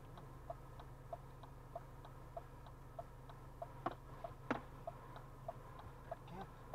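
Car turn-signal indicator ticking evenly at about three clicks a second, over the low steady hum of the idling car. Two louder knocks come near the middle.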